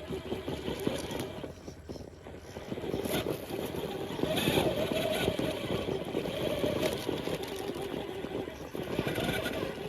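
1/6-scale Redcat Vertex 6 RC rock crawler's electric motor and geared drivetrain whining as it crawls, the whine swelling and easing with the throttle and loudest about halfway through, with light clicks and clatter of tyres and chassis on rock.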